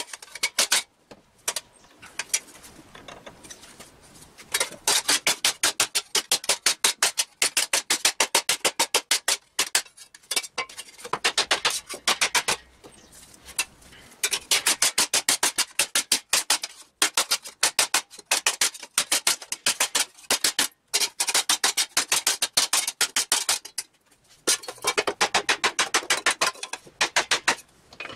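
Hand hammer striking 16-gauge sheet steel held over an anvil, in fast runs of sharp metallic blows, several a second, with short pauses between runs. It is the steel being hammered to shape for a one-piece gauntlet.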